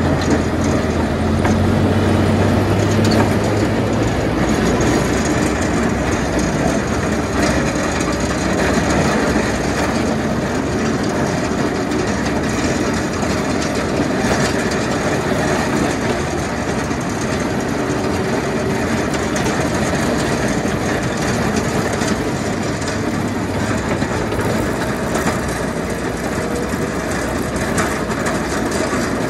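A snowplow vehicle's engine running while its front V-plow scrapes and pushes packed snow and ice along the road, a steady rough scraping rattle. A low engine hum is stronger for the first few seconds.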